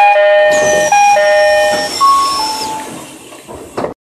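Commuter train door chime sounding a repeated high-low electronic two-tone, ending on a higher falling pair of notes. A rush of air hiss with a faint falling whine comes in about half a second in, as the doors work at the station stop. The sound fades and cuts off just before the end.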